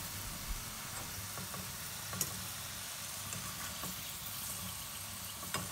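Onion rings deep-frying in hot oil: a steady sizzle, with a few faint clicks.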